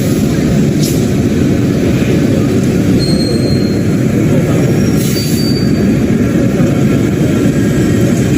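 Steady, loud running noise of a CNC lathe with a gantry robot loader machining small workpieces. Brief high squeaks come about three and five seconds in, with a couple of light clicks.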